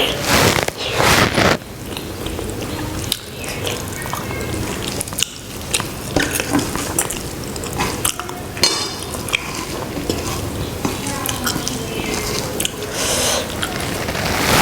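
Close-miked eating sounds of rice with egg curry: wet mixing, squelching and chewing, with many small clicks and light clinks against the plate.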